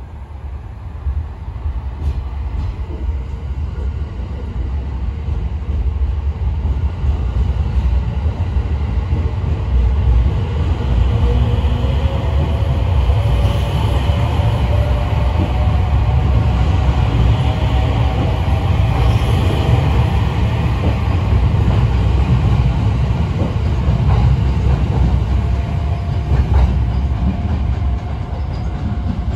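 Sunrise Izumo sleeper train, a 285 series electric multiple unit, pulling out of the station and running past close by. A heavy rumble of wheels on the rails with a few clicks over the rail joints, and an electric motor whine that rises slowly in pitch as the train gathers speed. The sound eases a little near the end as the last car moves away.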